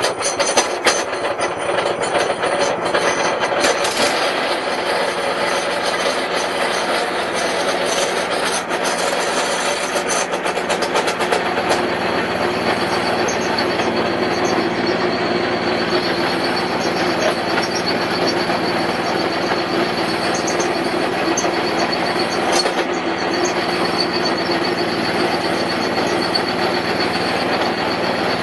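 Small petrol engine running steadily under a test run, belt-driving the pulley of a fish feed pelleting machine. A clatter of knocks comes in the first few seconds and again around ten seconds in.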